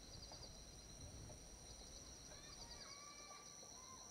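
Faint forest ambience: insects trilling steadily with rapid repeated chirps, and a bird whistling a few notes starting a little after two seconds in.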